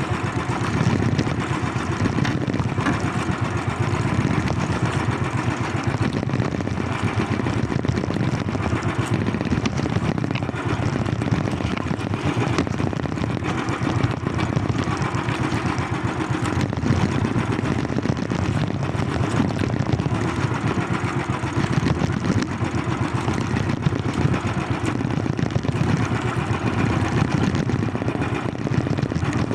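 A small engine running steadily at an even speed, with no change in pitch or level.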